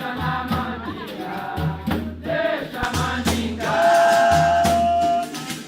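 Capoeira song: singing over a steady, repeating low drum beat, with one long held note near the middle.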